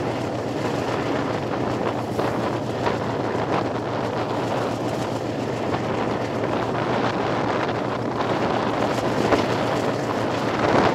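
Wind buffeting the microphone on a moving Ferrocarril Central Andino passenger train, over the train's steady running noise on the rails. The noise holds steady throughout.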